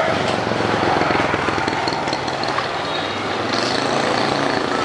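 An engine running steadily, with a fast even low pulse.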